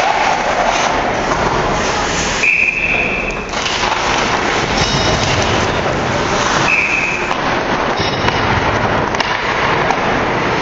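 Noisy rink crowd cheering and shouting during play. A shrill steady tone, about a second long, cuts through it twice: about two and a half seconds in and again near seven seconds.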